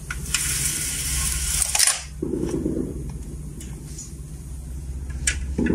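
A venetian blind being pulled up: its slats rattle and rustle for nearly two seconds, followed by a couple of short dull knocks. A steady low hum runs underneath throughout.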